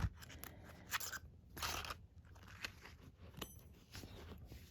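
Faint rustling and scattered small clicks of lock-picking tools being handled while a larger single-pin pick is sought out.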